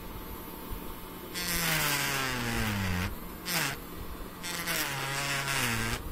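Engrave-It electric engraving pen cutting into painted wood: a low motor hum that turns into a loud buzzing grind three times as the tip bites, its pitch sagging under the load. The first spell starts about a second and a half in, a brief one follows, and a longer one runs until just before the end.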